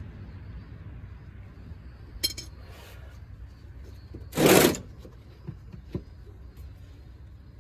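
Metal clinks from hand tools and parts being handled, with one loud, short, harsh clatter about halfway through and a few faint ticks after it.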